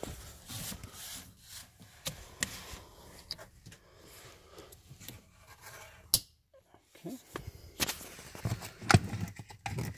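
Hands rubbing and rustling against plastic trim and wiring while plugging a brake-controller harness into a plastic wiring connector, with scattered clicks; a sharp click about six seconds in and the loudest one near the end.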